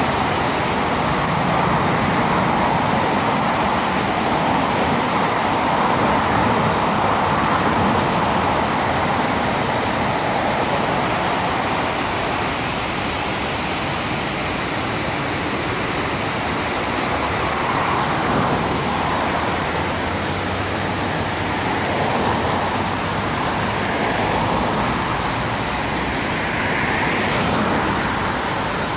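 Steady rushing of the Schuylkill River spilling over the Fairmount Dam, a long low weir, and churning in the foamy water below it. The rush is even throughout, with a few gentle swells.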